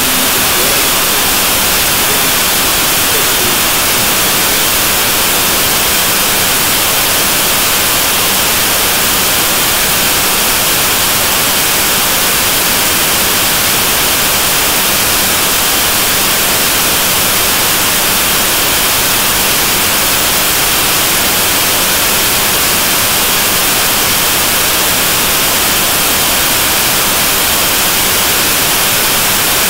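Steady, loud static-like hiss, with a faint low hum beneath it.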